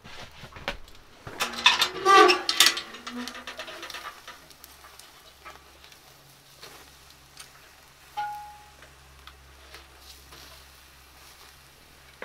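Cast-iron wood stove door swung open with metal clanks and scraping, then raw steaks searing directly on hot coals in the firebox: a faint sizzle and crackle with small ticks, and a brief metallic ring about eight seconds in.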